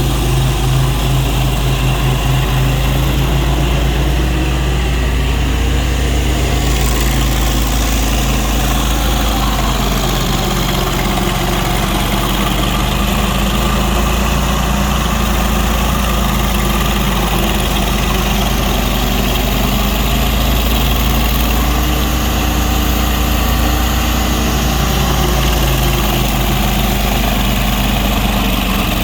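A heavy engine idling steadily, with a continuous low hum.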